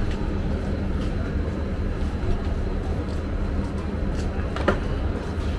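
Passenger train running: a steady low rumble with a constant hum, and one short sharp clack near the end.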